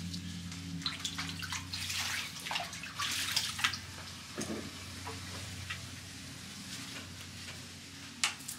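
Water sloshing and dripping in a sink basin as tomatillos are husked and rinsed by hand, with small knocks and rustles. It thins out to occasional ticks about halfway through, over a steady low hum.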